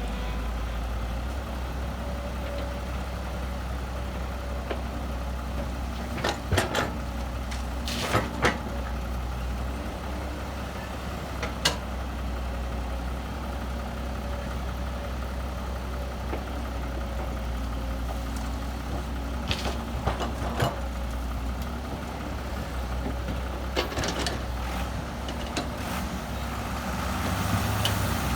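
Heavy diesel earthmoving machinery, dump trucks and a bulldozer, running steadily with a low engine rumble. Several sharp knocks and clanks come through at irregular moments.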